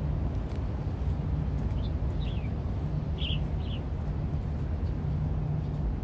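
Waterfront park ambience: a steady low hum of distant traffic and machinery, with a few short bird chirps a couple of seconds in and faint footsteps about twice a second.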